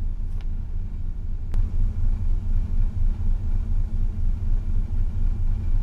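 Continuous low machinery rumble that wavers in loudness, with a faint click about a second and a half in.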